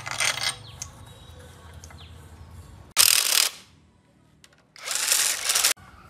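Cordless impact wrench running in three short bursts, driving bolts into the gearbox housing of a restored truck engine.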